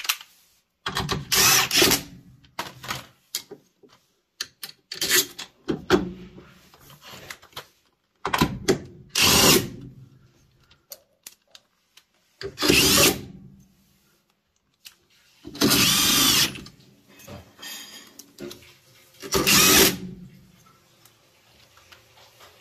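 Cordless drill/driver running in about six short bursts a few seconds apart, driving the stator mounting screws of a Maytag Bravos XL washer's direct-drive motor back into place, with small handling clicks in between.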